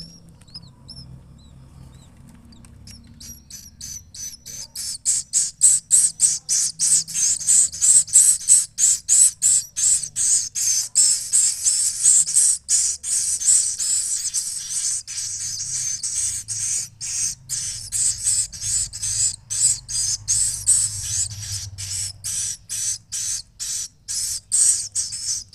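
Swiftlet chicks calling: a long run of short, high chirps repeated two to three times a second, faint at first and loud from about four seconds in.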